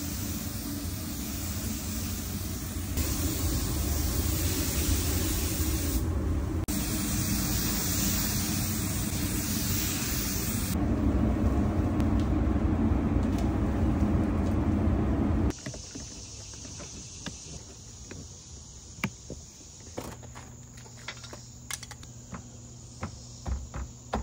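Paint spray gun hissing steadily as clear coat is sprayed, with a steady low hum beneath it. The hiss stops abruptly about fifteen seconds in, leaving a much quieter stretch with scattered light clicks and knocks.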